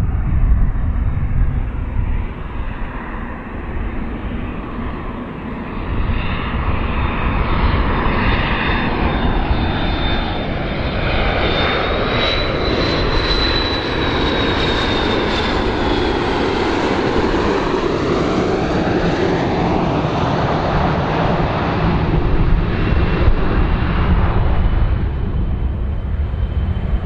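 McDonnell Douglas MD-82 airliner flying low on landing approach, its two rear-mounted Pratt & Whitney JT8D turbofans running. A high whine peaks in pitch about halfway and then drops away, and the engine noise swirls with a phasing sweep as the jet passes.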